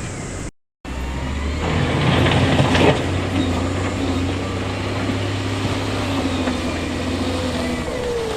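Heavy diesel earthmoving machinery running steadily, with a stretch of rattling and crunching about two to three seconds in, as from stone being moved. The sound cuts out completely for a moment about half a second in.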